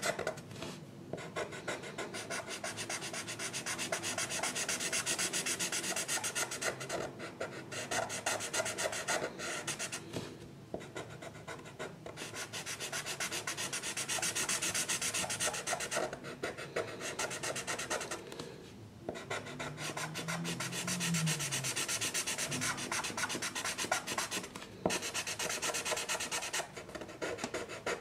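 A drawing tool scratching on paper in rapid back-and-forth strokes while colouring in an area, with short pauses every few seconds.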